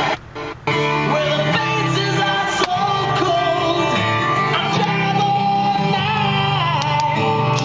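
A few short clicks, then, from about a second in, music with singing and guitar playing over the car's stereo.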